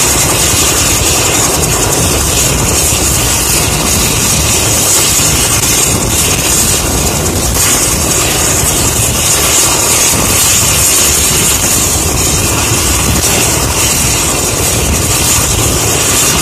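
Mi-8 twin-turbine helicopter running on the ground with its rotors turning: a loud, steady engine and rotor noise with a hissing high whine.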